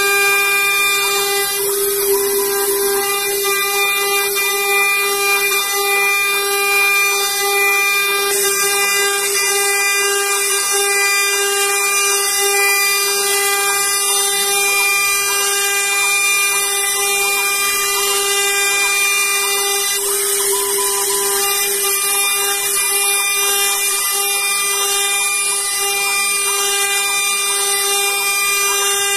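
CNC milling machine spindle running at high speed while an end mill cuts aluminium plate: a steady whine of constant pitch with a high hiss above it.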